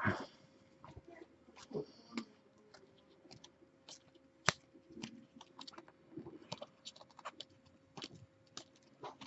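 Irregular light clicking and tapping, with one sharper click about four and a half seconds in, over a faint steady hum.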